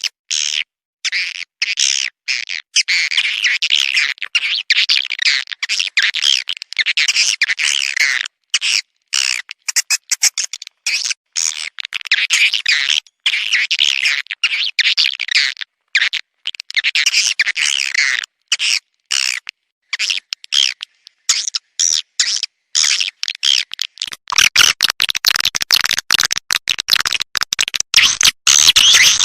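Swiftlet lure-call recording: dense, rapid edible-nest swiftlet chirps and twitters, chopped by many short silent gaps. Near the end a rough scratchy noise reaching down low joins the chirping.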